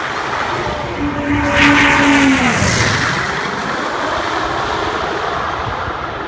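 Twin radial engines and propellers of a low-flying twin-engine warbird. The engine note holds steady, drops in pitch as the plane passes about two and a half seconds in, and the sound slowly fades as it flies away.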